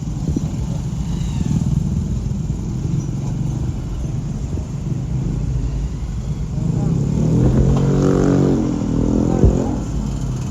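Steady low road and engine rumble of a moving vehicle, with a motor vehicle engine, likely a motorcycle, growing louder and running pitched between about seven and nine seconds in.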